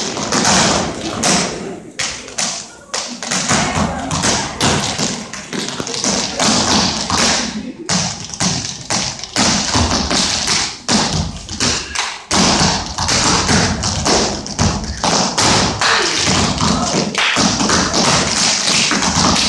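Tap shoes striking a stage floor in dense, rapid runs of taps, broken by a few brief pauses.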